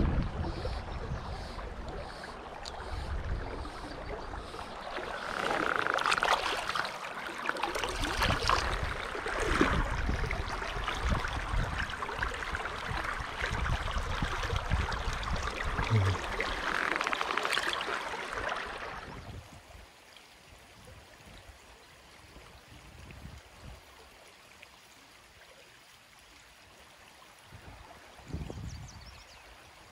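Shallow stream water splashing and sloshing as hands work in it, with several louder splashes. About 19 seconds in, it drops abruptly to a quieter, steady burble of the stream flowing.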